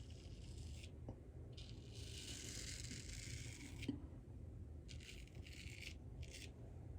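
Straight razor scraping through lathered whiskers in a series of short raspy strokes, the longest about two seconds.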